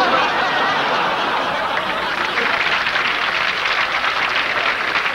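Audience laughing and applauding steadily after a punchline.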